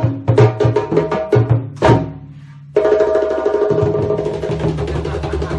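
West African djembe and dunun drums played together in a rhythm. About two seconds in they break off on a sharp stroke, and after a short lull they start again as a dense, continuous roll.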